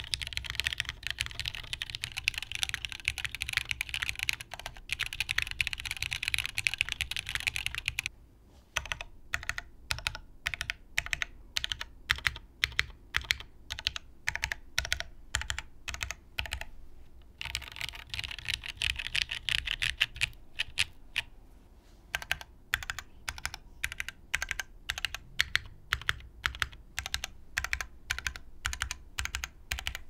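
Keys pressed on plateless Daji Seis Cero mechanical keyboards fitted with lubed Cherry MX Black and Gateron CJ linear switches. Fast typing at first and again for a few seconds past the middle, with slower single presses of the modifier and stabilized keys between and in the last third, on the Gateron CJ board.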